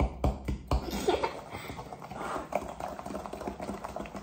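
Wooden spoon stirring a wet cookie-dough mix of butter, sugar and egg in a glass mixing bowl: quick, uneven knocks and scrapes of the spoon against the glass.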